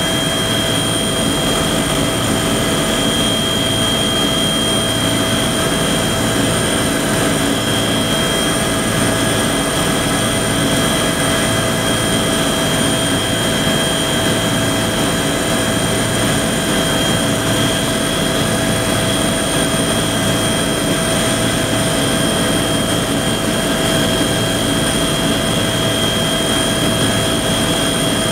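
Helicopter heard from inside the cabin in flight: a loud, steady drone of engine and rotor with several constant high whining tones over it and a low pulsing beat underneath.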